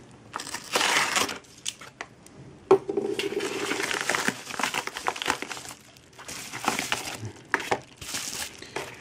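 Yellow padded bubble mailer crinkling and rustling in several bursts as it is slit open with a utility knife and handled, with a few sharp clicks among the rustling.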